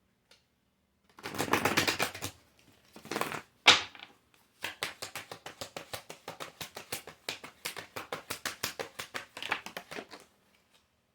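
Tarot cards being shuffled by hand. A dense clattering burst comes first, then a sharp snap about four seconds in, then a long run of quick, even clicks of about seven a second.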